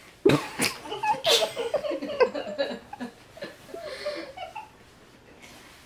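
A girl laughing in breathy bursts and giggles for about three seconds, then dying down to quiet.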